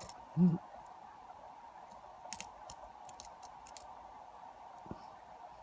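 Lock pick working the pins of a lock held in a vise: scattered faint metallic clicks and ticks as a pin is probed and set. A brief low hum about half a second in is the loudest sound.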